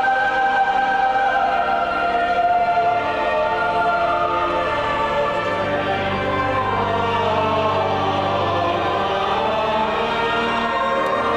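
Church choir singing in held notes, with organ accompaniment sustaining long low tones underneath.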